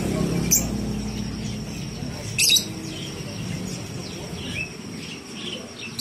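Caged lovebirds chirping: a stream of quick high chirps, with two sharp, loud shrieks about half a second and two and a half seconds in, over a low background rumble that dies away about three-quarters of the way through.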